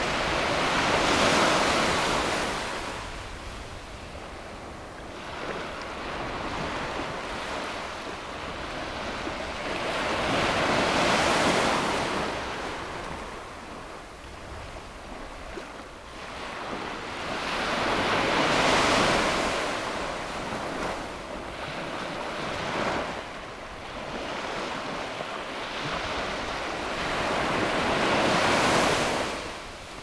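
Low surf breaking and washing up a sand beach, a hissing rush that swells and falls away in a slow rhythm: four larger surges about nine seconds apart, with smaller washes between them.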